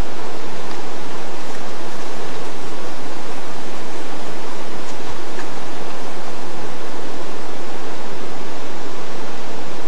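Loud, steady rushing of river water.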